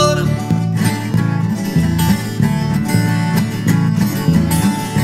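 Viola caipira, the Brazilian ten-string folk guitar, picking an instrumental passage between sung verses of a hymn, with quick plucked notes over changing low bass notes.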